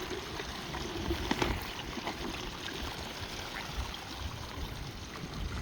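Water running steadily from a garden hose into a tree watering bag as the bag slowly fills.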